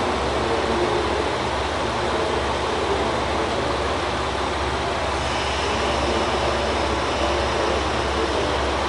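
KiHa 185 diesel railcar standing at a platform with its engine idling, a steady low drone under station noise. A faint high steady tone joins about halfway through.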